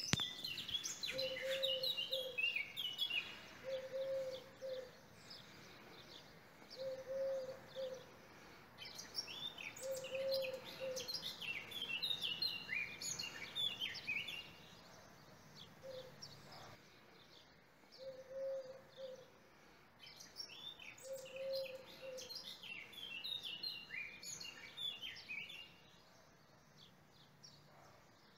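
Birdsong: small birds chirping and trilling in quick bursts, with a lower single call repeated every few seconds.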